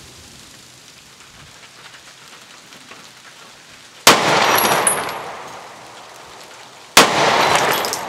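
Two pistol shots from a Rock Island Armory 1911 about three seconds apart, fired into ballistic gelatin. Each is a sharp crack followed by about a second of fading echo.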